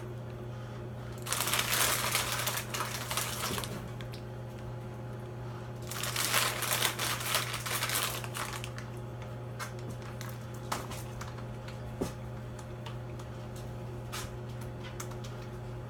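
Packaging being handled: two spells of crinkling and rustling, one about a second in and another around six seconds in, followed by a few light clicks, over a steady low hum.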